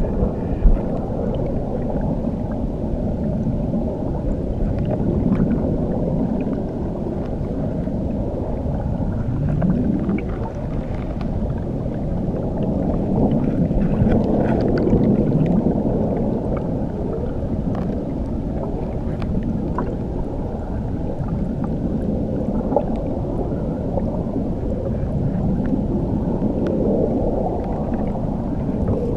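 Underwater recording beneath a waterfall: a steady, muffled churning rumble of falling water, dull and low, with slow gurgling swirls and faint scattered ticks.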